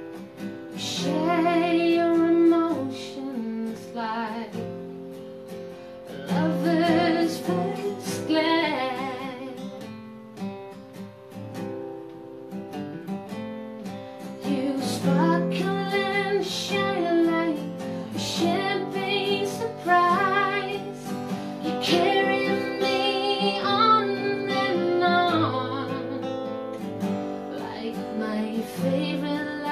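A woman singing, accompanying herself on an acoustic guitar, with short breaks in the vocal between phrases.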